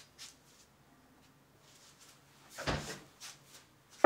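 Quiet kitchen handling sounds: a few light taps, a heavier thump about two and a half seconds in, and a sharp knock at the very end.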